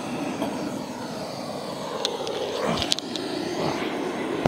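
Handheld gas torch burning with a steady rushing noise as it lights barbecue charcoal, with a few light clicks about two to three seconds in.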